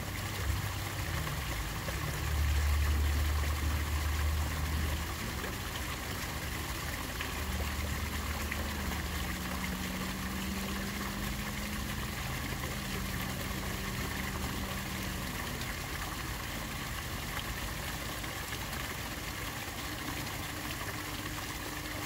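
Water pouring steadily from the mouth of a corrugated metal culvert pipe and splashing into the stream pool below. Low hums come and go underneath, loudest for a few seconds just after the start.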